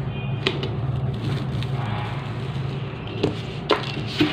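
Cardboard printer-box flaps and packing being handled and folded back: rustling with a few sharp knocks, half a second in and near the end, over a steady low hum.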